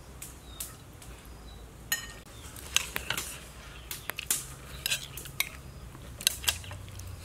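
Metal spoon clinking and scraping against ceramic plates during a meal: a dozen or so light, irregular clinks.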